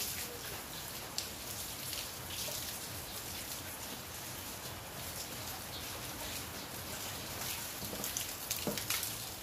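Water from a garden hose held overhead, pattering and splashing onto a wet patio floor like rain, with louder splashes near the end.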